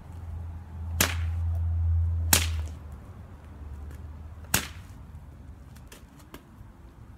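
Single-tailed whip cracking sharply three times: about a second in, near two and a half seconds, and about four and a half seconds in. A low rumble runs under the first few seconds.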